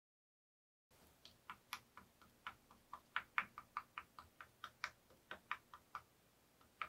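A sponge paint dauber tapped over and over onto a wooden cutout: quiet, sharp ticks at about four a second, uneven in loudness, starting about a second in out of dead silence.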